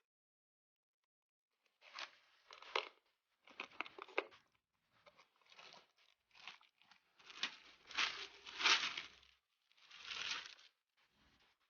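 Packaging being handled and torn open: short bursts of tearing and crinkling, starting about two seconds in and coming thickest near the end.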